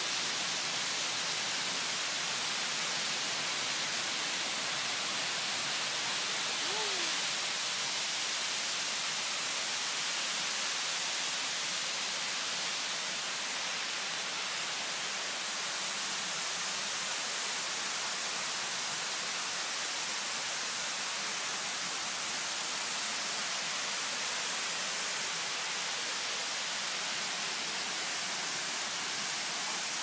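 Row of fountain water jets arcing from a wall and splashing into a pool: a steady, even splashing hiss.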